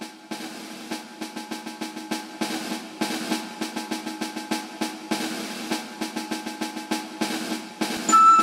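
Snare drum roll that grows steadily louder, with a louder turn near the end as a tune comes in.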